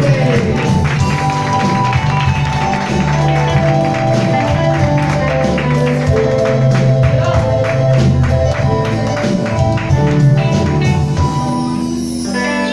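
Live band playing, sustained instrumental chords over regular percussion strokes; the music thins out near the end.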